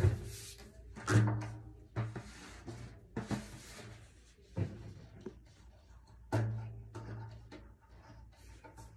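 Drum parts being handled: about five knocks and bumps, several of them leaving a drum ringing with a low hum for up to a second.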